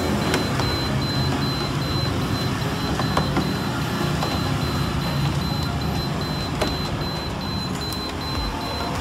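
The electronic buzzer on a Sharp air cooler fan's control board beeps without stopping, a steady string of short high beeps several times a second, over a background hum. This endless 'tit tit' beeping is the fault in which the fan cannot be controlled; the technician suspects the board's capacitor-dropper power supply is giving too low a voltage. A few faint clicks are heard.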